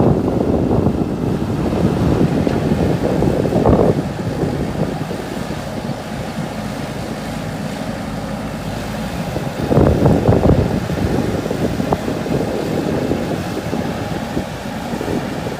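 Diesel engine of a JCB 3DX backhoe loader running while it works, louder for the first few seconds and again briefly about ten seconds in.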